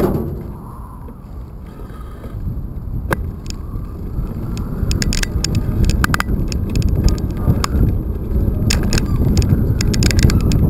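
Bicycle rolling along a brick and concrete sidewalk: a low rumble that builds over the first few seconds as it gets going, then frequent sharp clicks and rattles as the bike jolts over the paving.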